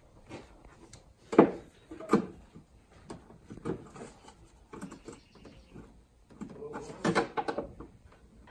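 Hands working at a plastic push-in clip and the fender liner in a 4Runner's engine bay: scattered knocks and clicks of plastic being handled, the loudest about a second and a half in.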